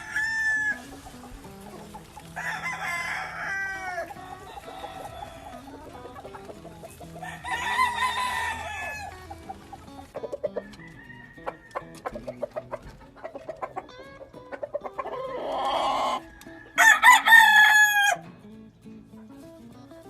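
Gamefowl roosters crowing in turn, several separate crows of a second or two each, the loudest near the end, with quieter clucking between them.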